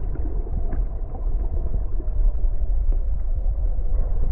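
Stream current heard through a phone microphone held underwater: a steady, muffled, low rumble of moving water with a faint gurgle.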